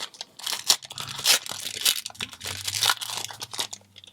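Foil booster pack wrapper being torn open and crinkled: a run of dry crackling and tearing rustles that stops near the end.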